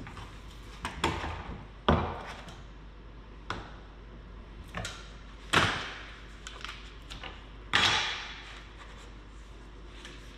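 Luxury vinyl flooring planks being handled and set down on a granite countertop. About six separate sharp clacks and knocks, the loudest just past halfway and about three-quarters of the way through.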